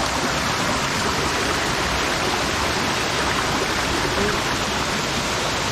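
Rushing water, a steady loud, even rush with no breaks.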